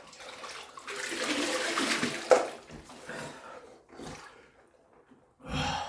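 Ice water sloshing and splashing in a chest freezer cold plunge as the bather moves in it, loudest for about a second and a half, ending in a sharp knock, with smaller splashes after.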